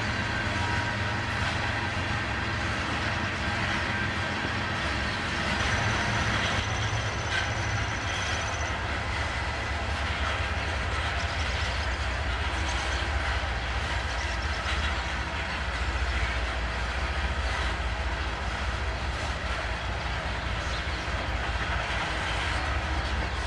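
Loaded coal hopper cars of a freight train rolling past: a steady rumble of steel wheels on rail, with a faint thin high whine now and then.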